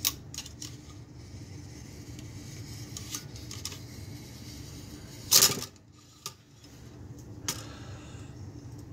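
Cleaning rod with a patch pushed through the chamber and bore of a .243 Winchester Ruger M77 bolt-action rifle: light scattered clicks and taps of the rod against the action, with one louder brief scrape about five seconds in.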